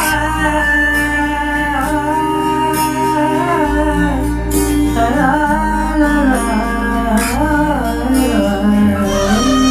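Song intro: a gliding melody with wordless humming over sustained bass notes.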